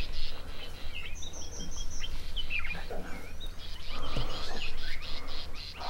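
Wild birds chirping and calling, with a run of about five short high notes about a second in and a fast repeated chirping in the second half, over a steady low background noise.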